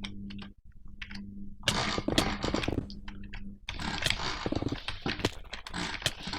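Clutch clips clicking and clattering as they are handled: two spells of rapid clicks, a short one about two seconds in and a longer one from about the middle on, over a steady low hum.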